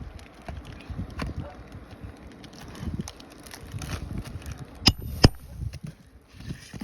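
Scattered light taps and handling noise, broken by two sharp knocks about half a second apart, the loudest sounds here.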